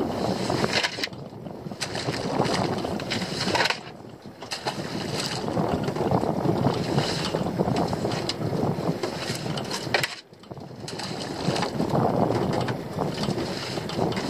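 Wind buffeting the microphone over sea water slopping against a small open boat. The rushing noise drops away briefly three times.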